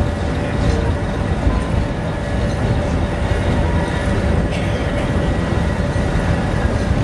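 Sóller electric tram running along its track, heard from on board: a steady rumble of wheels on rails with a faint steady whine, and a single short clack about four and a half seconds in.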